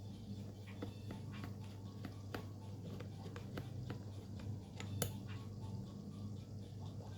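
Irregular small clicks and taps of objects being handled, with one sharper click about five seconds in, over a low steady hum.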